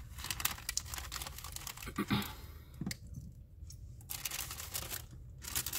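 Clear plastic bags crinkling and rustling as they are handled, a run of sharp crackles that stops briefly about three seconds in and then starts again.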